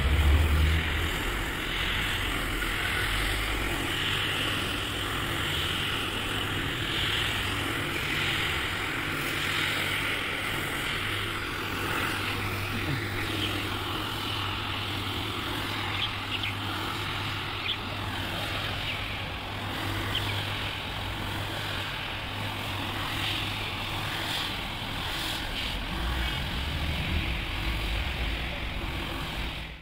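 Single-disc rotary floor scrubber running steadily with a constant motor hum, its brush scrubbing through soapy foam on a wet rug.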